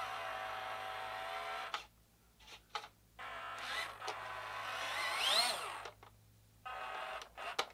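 WLtoys 14600 1/14 RC dump truck's electric drive motor and gearbox whining in three short runs as the truck drives with its raised bed holding a heavy rock. In the middle run the whine rises in pitch as it speeds up.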